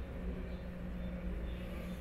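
Steady low hum of indoor room tone, with no distinct events.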